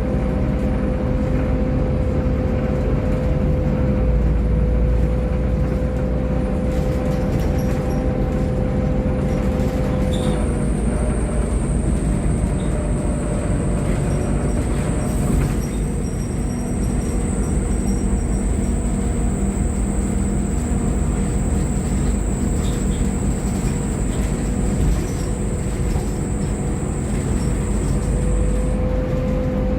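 Volvo B7TL double-decker bus heard from inside while riding, its seven-litre six-cylinder diesel running steadily with a low drone. A steady mid-pitched whine drops out about ten seconds in and returns near the end, and a thin high whine holds from about ten seconds in until shortly before the end.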